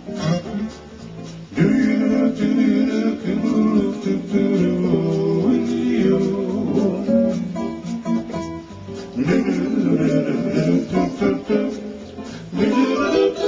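Mellow song backed by acoustic guitar, with a lead melody that comes in two long phrases, starting about a second and a half in and again around nine seconds in.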